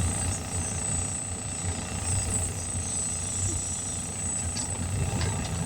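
Air compressor running steadily, a pulsing low drone with a thin high whine over it, as it builds air pressure for seating a tire bead.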